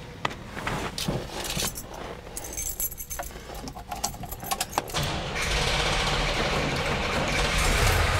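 Chevelle SS396's L78 396 big-block V8 running at idle, with knocks and clicks as someone climbs into the driver's seat. The engine sound gets louder from about five seconds in and stays steady.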